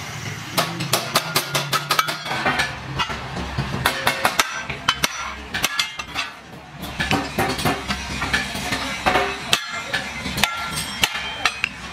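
Hammer striking a notched square steel tube to bend it, in quick runs of ringing metallic blows with short pauses between.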